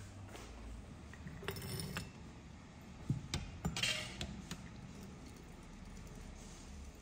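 A few sharp clinks of porcelain and metal, loudest a little past the middle, as a porcelain teapot is set under a samovar's tap and the tap is worked. After that, hot water runs quietly from the tap into the teapot.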